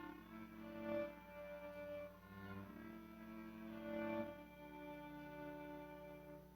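Slow instrumental music of held chords with a string-like sound, changing about once a second and stopping shortly before the end.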